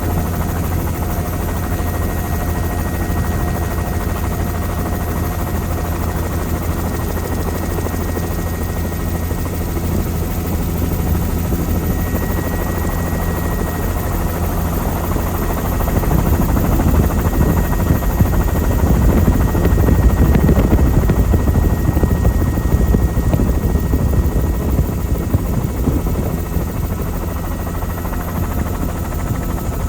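Helicopter in flight, heard from on board: a steady rotor and engine drone with a faint high whine. It grows louder and rougher for about ten seconds past the middle, then settles back.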